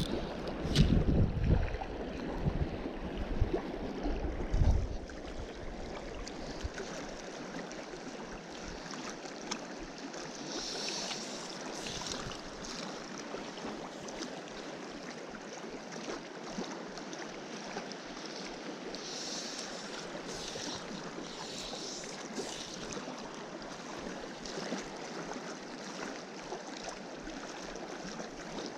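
Small mountain trout stream running steadily over rocks, with wind gusting against the microphone for the first few seconds.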